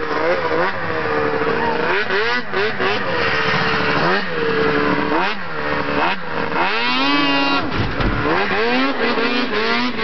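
Snowmobile engines revving as sleds ride past, the pitch repeatedly climbing and dropping as they speed up and ease off. The loudest moment is a sled accelerating hard close by, about six to seven seconds in.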